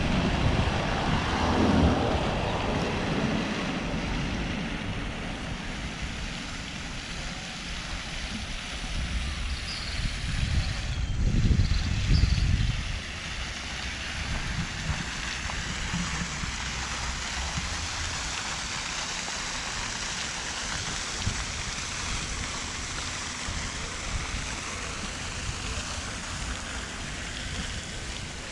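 Steady outdoor rushing noise, with gusts of wind buffeting the microphone near the start and more strongly about ten to thirteen seconds in.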